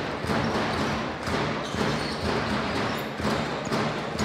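Basketball being dribbled on a hardwood court, a regular run of bounces over the steady hum of an arena crowd.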